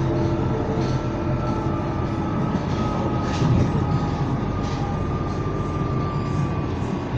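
Inside a London Underground Northern Line train carriage: steady low rumble and hum of the train running, with a thin whine that drifts slowly down in pitch and light rattles of the carriage.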